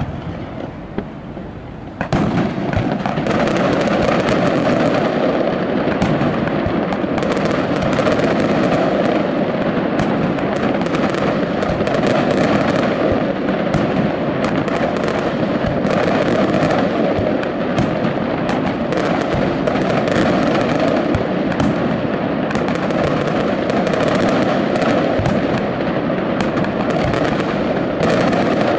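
Aerial fireworks display: after a quieter first two seconds, a dense, continuous barrage starts and keeps up, with many sharp bangs and crackles over a constant rumble.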